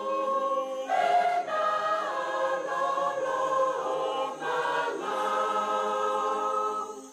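A Fijian church congregation singing a hymn in several-part harmony, holding long chords that change every second or so.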